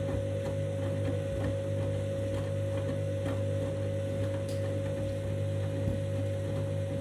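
Candy washing machine running its 90-degree main wash: a steady motor hum with a fixed whine above it and faint, irregular clicks.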